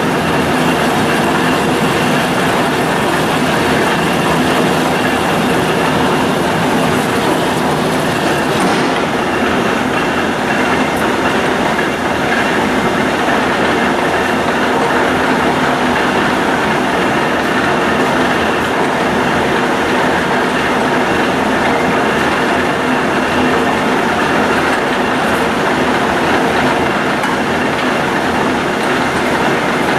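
Monarch 32 NN engine lathe running under power: a steady mechanical noise from its 30-horsepower main motor and geared headstock, with a few steady tones in it. The highest hiss drops away about nine seconds in.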